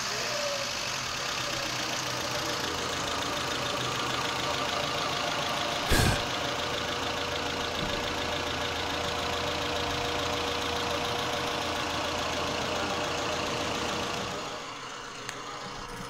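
Mazda B2000 pickup's four-cylinder engine running steadily with a misfire on cylinder two, which the scope traces to a lean condition from a bad fuel injector. A single loud sharp knock comes about six seconds in, and the engine sound drops away near the end.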